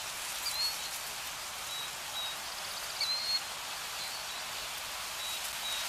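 Nature ambience: a steady rushing hiss with a few short, high bird chirps, the clearest about half a second and three seconds in.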